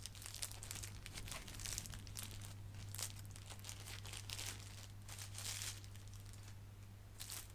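Thin plastic wrapping crinkling and rustling in irregular handfuls as a pair of sunglasses is worked out of it, over a steady low hum.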